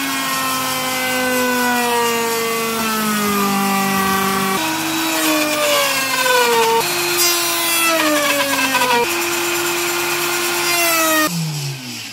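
Handheld electric router running at full speed and cutting wood, a high motor whine whose pitch sags and recovers repeatedly as the bit takes load. About 11 seconds in it is switched off and the motor winds down, its pitch falling away.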